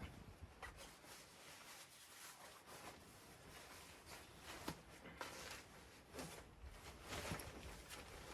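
Near silence: faint rustling with a few soft clicks and knocks scattered through it.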